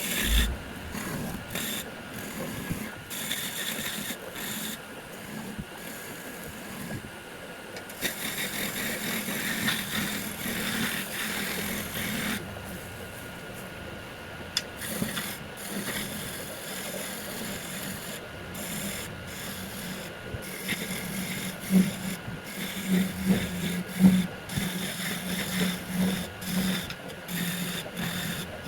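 A hand tool scraping and rasping against a piece of wood spinning on a wood lathe, with frequent brief breaks as the tool comes off the work. A low hum grows louder in the last several seconds.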